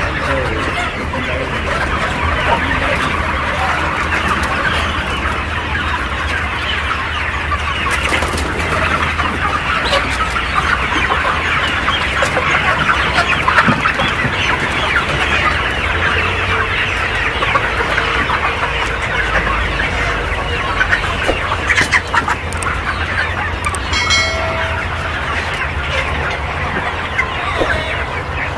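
A large flock of several thousand DP-cross (mostly desi-type) chickens clucking and calling together in a poultry shed, a dense, continuous chatter of many birds. One longer pitched call stands out near the end.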